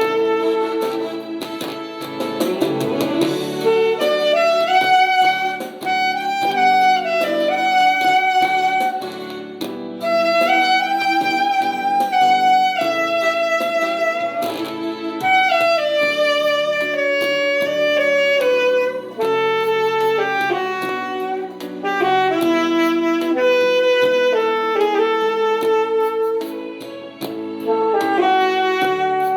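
Saxophone playing a slow melody of long held notes and short phrases over a steady chordal accompaniment.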